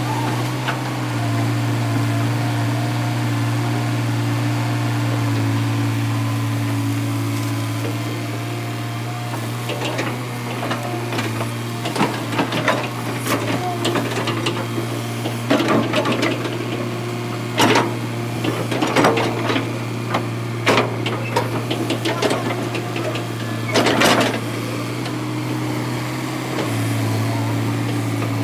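Tata Hitachi EX200 hydraulic excavator's diesel engine running at a steady drone, with irregular knocks and clatter through the middle stretch as the machine works the riverbed.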